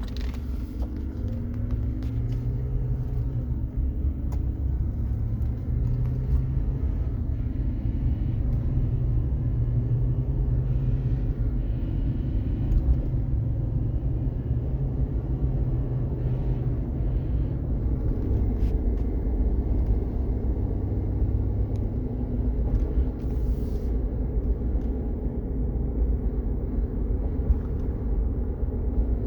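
2016 Chevrolet Silverado pickup under way: a steady low rumble with a whine from the undercarriage, the whine rising in pitch over the first couple of seconds.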